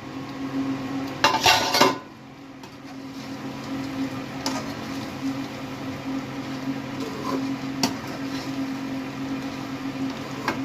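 Metal pot and lid clattering about a second in as the pot of amla murabba is uncovered. Then a few light stirring and scraping clicks in the cooking pot, over a steady low hum.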